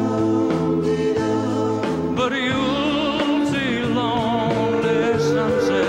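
A male lead voice sings long held notes with a wide vibrato over sustained band accompaniment. About two seconds in, the voice grows stronger and rises.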